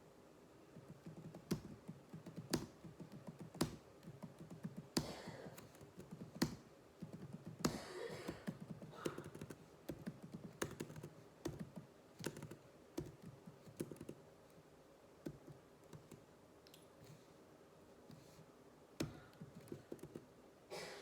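Computer keyboard being typed on: quick, irregular key clicks, dense for most of the time, thinning to a few scattered presses near the end.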